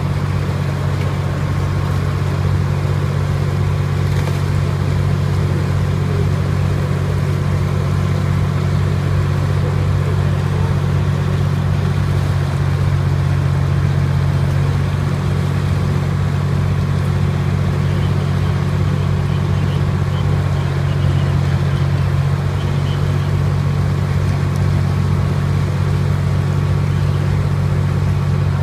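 Tow truck engine running steadily, a low even drone, as it powers the winch hauling a submerged car in by cable.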